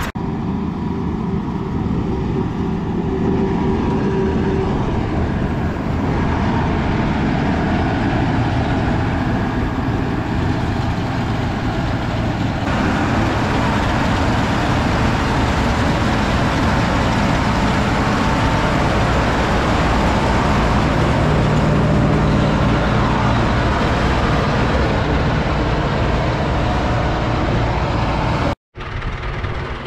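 Heavy diesel farm machine engine running steadily. Its note shifts partway through, and the sound cuts out for a moment near the end.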